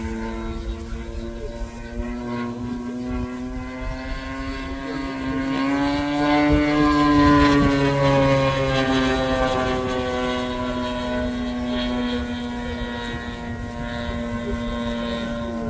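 Single-cylinder combustion engine of an RC model airplane in flight, with propeller noise. It grows louder and higher in pitch toward the middle, then fades and drops in pitch again, as the plane passes overhead.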